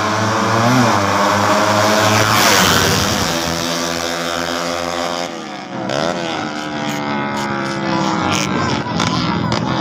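Racing motorcycles revving hard through the gears on a drag run. The engine pitch climbs and drops back at each shift, over a steady low engine hum.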